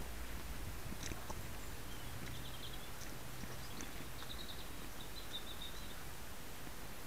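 Steady hiss from a cheap 808 keyfob camera's microphone strapped to a cairn terrier moving through undergrowth, with faint scattered ticks and rustles. A bird chirps faintly in short runs in the middle.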